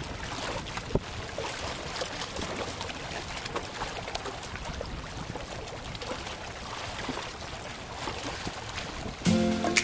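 Seawater sloshing and splashing among concrete breakwater blocks, with small splashes and clicks throughout. Music comes in near the end.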